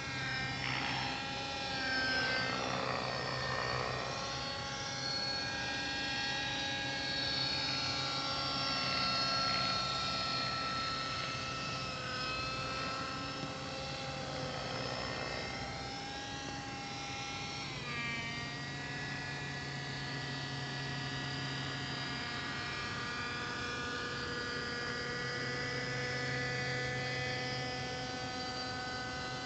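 Nitro-engined radio-controlled model helicopter, a Thunder Tiger 50-size, flying: a high engine-and-rotor whine whose pitch wavers up and down with the manoeuvres, changes abruptly about eighteen seconds in, and then holds steadier.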